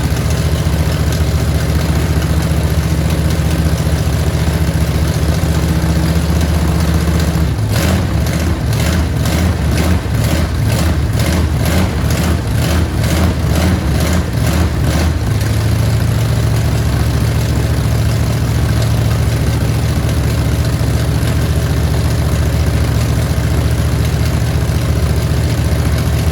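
Chevrolet 454 big-block V8 running steadily at a low, even note. For several seconds in the middle a regular pulsing of about two to three beats a second rides over it, and then the steady running returns.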